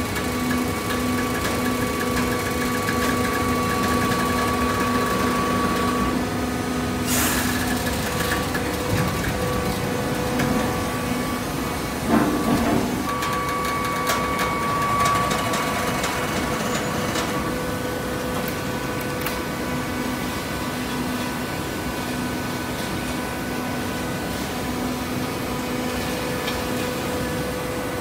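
Hydraulic horizontal baler running: a steady hum from its electric motor and hydraulic pump, with a brief burst of noise about seven seconds in and a knock about twelve seconds in.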